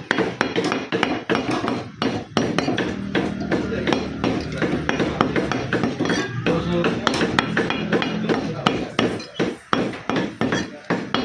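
Butcher's cleaver chopping mutton, repeated sharp chops in a quick, irregular rhythm of about two to three strokes a second.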